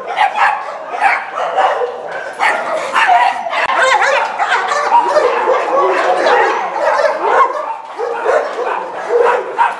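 Several dogs barking and yipping at once, overlapping without a break, in a shelter's kennel row.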